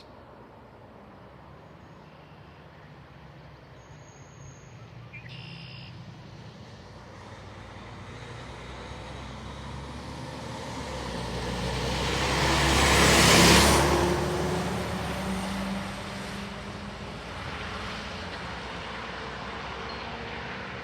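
A freight train approaching and passing close by. Its rumble builds slowly, is loudest about two-thirds of the way through, then settles into a steady sound of cars rolling past.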